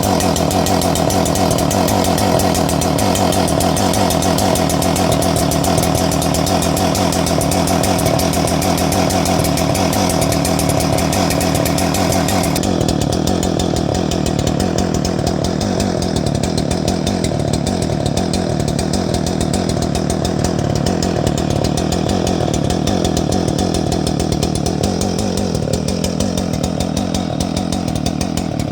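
Husqvarna 394XP, a big 94cc two-stroke chainsaw, running continuously at high revs while cutting small branches. About halfway through the sound suddenly loses its top hiss and goes duller, then runs on steadily.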